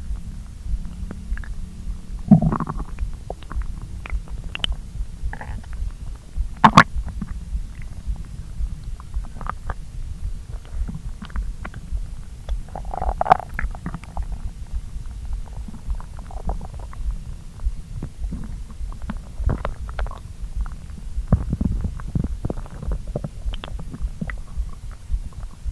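Human stomach and intestines gurgling while digesting a freshly eaten meal of pasta after hours on an empty stomach. A steady low rumble runs underneath frequent small pops and clicks, with louder gurgles about 2, 7 and 13 seconds in.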